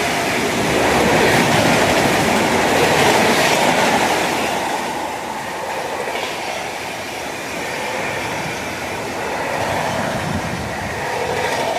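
Coaches of an express train hauled by an Indian Railways WAP7 electric locomotive running through a station at speed without stopping. The wheels make a steady rush and clatter on the rails, easing slightly about halfway through.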